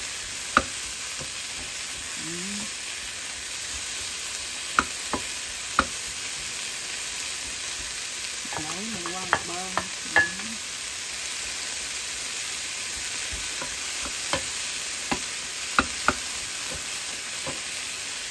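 Diced mushrooms and green peas sizzling in oil in a nonstick frying pan as they are stir-fried with a wooden spatula. The sizzle is a steady hiss, broken by sharp clicks where the spatula knocks against the pan.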